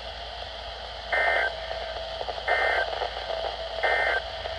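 Weather-radio Emergency Alert System end-of-message signal: three short identical bursts of two-tone SAME digital data, about 1.4 seconds apart, over radio hiss. They mark the end of the flood warning broadcast.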